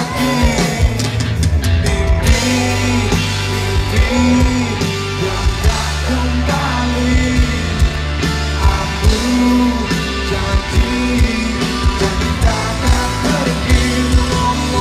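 Live rock band playing through a concert PA: electric guitars over a steady bass line and drum beat.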